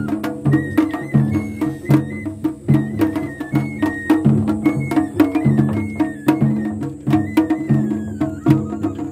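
Japanese festival-float music (matsuri-bayashi): a high flute melody stepping between notes over drumming, with many sharp wooden clicks.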